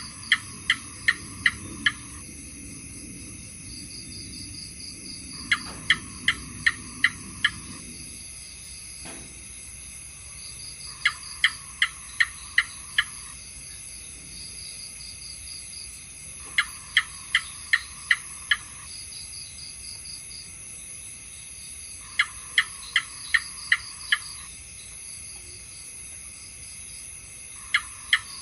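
House gecko calling in bouts of six or seven sharp, evenly spaced chirps, a new bout starting about every five and a half seconds. Under the calls runs a steady high insect trill.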